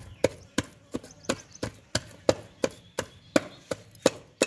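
Wooden pestle pounding minced fish paste in a metal pot: a steady beat of about three thuds a second.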